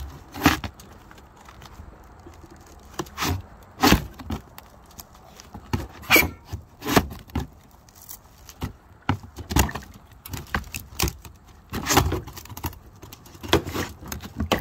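A steel shingle ripper worked under a nailed-in cedar shake: about a dozen sharp, irregular metallic knocks and clinks, roughly one a second, as the tool is struck and levered against the nails and the brittle, cracking wood.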